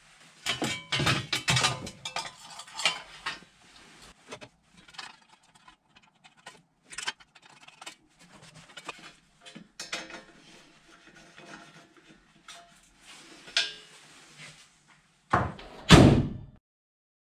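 Thin sheet-metal heat shield clinking and clattering, with scattered knocks, as it is fitted in a Datsun 720's engine bay. Near the end the hood is shut with two heavy thumps, the second the louder.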